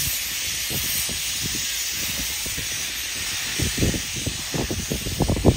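Steady hiss of steam blowing from the cylinder drain cocks of the JNR Class C62 steam locomotive C62 2. Irregular low thumps join in and grow stronger over the last two seconds.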